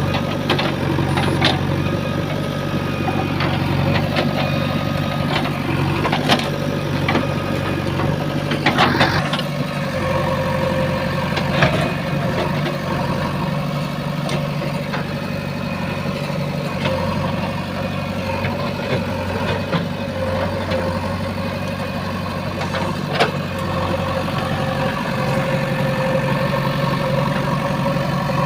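JCB 3DX backhoe loader's diesel engine running steadily, with a few short, sharp knocks scattered through.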